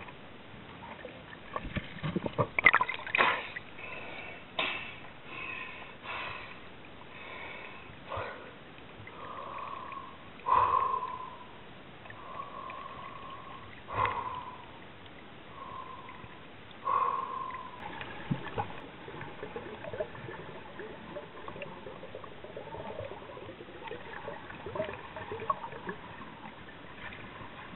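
Water sloshing and gurgling around a camera moved underwater and at the surface, with irregular knocks and splashes, the loudest a few seconds in.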